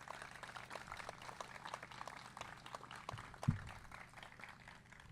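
Audience applause, faint and made of many quick scattered claps, with a single short low thump about three and a half seconds in.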